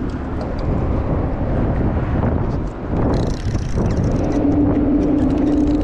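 Steady low rumble of road traffic on the bridge overhead, mixed with wind on the microphone; a steady hum joins about four seconds in.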